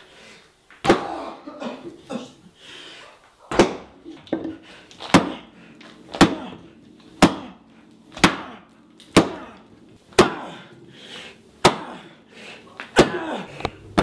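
Heavy banging: a series of loud, sharp wooden knocks, about one a second and very even through the middle, each with a short echo.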